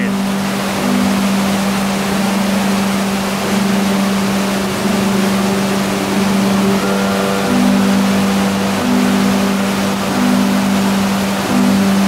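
Waterfall rushing: a loud, steady rush of falling water. Beneath it are soft held notes of ambient background music that change every second or two.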